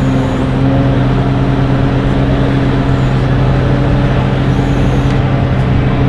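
XCMG XC7-SV12 skid steer loader's diesel engine running at a steady speed with an even hum while the lift arms raise the bucket.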